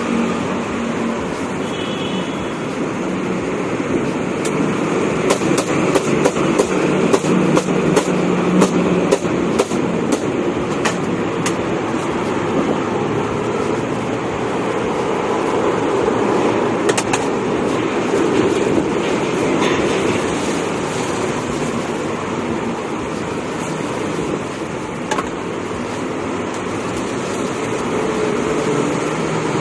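Steady road traffic noise, with light clicks and rustles of plastic bags being handled, thickest between about 5 and 12 seconds in.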